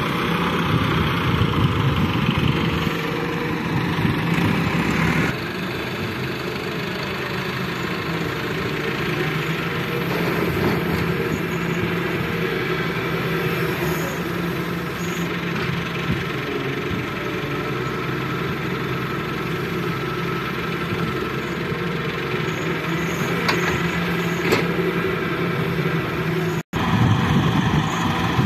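Diesel engines of a Daewoo wheeled excavator and a farm tractor running steadily while the excavator works loading soil. The sound cuts out for an instant near the end and comes back louder.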